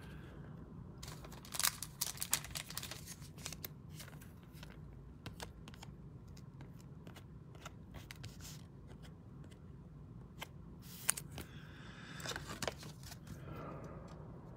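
Glossy Panini Mosaic trading cards being handled and shuffled, giving scattered light clicks and snaps as the cards slide and tap against each other. The clicks are busiest about two seconds in and again around eleven seconds, with a short rustle shortly before the end.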